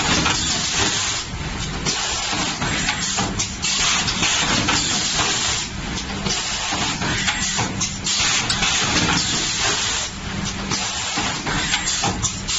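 Automated packing machine running, with a steady loud hiss and a low hum that dip and return in a regular cycle of about two seconds.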